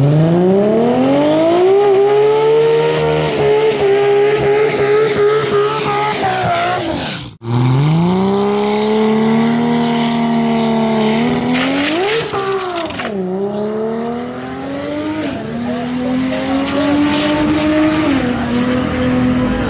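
Toyota Supra drag car's engine, first revving up and held high with tire squeal in what looks like a burnout. After a cut it sits at steady revs on the line and is blipped once. It then launches and accelerates away, the pitch climbing and dropping at two gear changes near the end.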